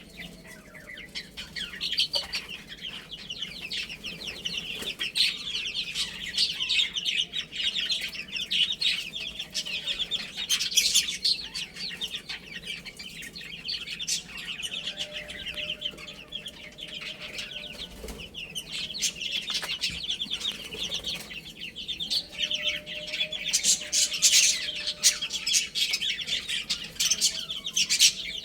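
A group of baby chicks peeping continuously: dense, rapid, high-pitched chirps overlapping one another, with scattered short clicks and rustles among them.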